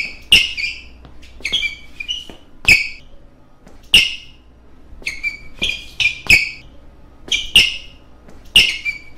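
Sneakers stamping and squeaking on a stage floor as several dancers run through a routine: about twenty sharp footfalls in uneven clusters, each with a short high squeak.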